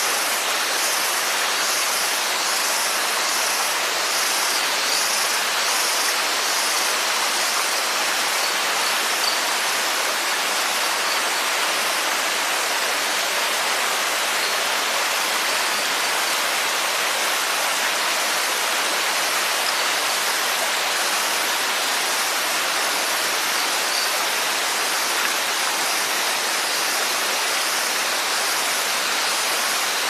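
Waterfall: water pouring and rushing in a steady, even roar of noise. A high pulsing, about two beats a second, sits over it for the first several seconds.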